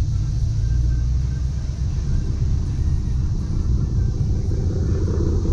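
A fifth-generation Camaro 2SS's 6.2-litre V8 with a Borla cat-back exhaust, a steady low rumble heard from inside the cabin as the car rolls along at low speed.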